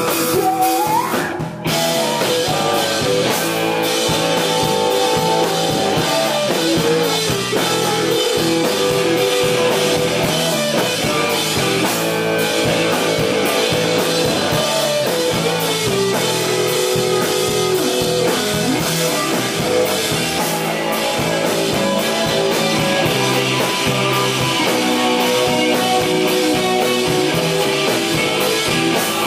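Live rock band playing a driving, steady beat on drum kit and electric guitar, with a brief break about a second and a half in.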